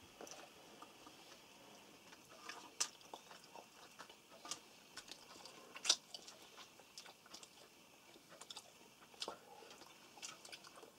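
People eating fried crucian carp at a table: faint chewing, with scattered clicks of forks on plates and bowls, a few of them sharper.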